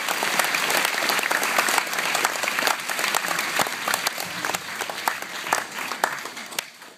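Crowd applauding, dense clapping that thins out and fades over the last few seconds to a few scattered claps.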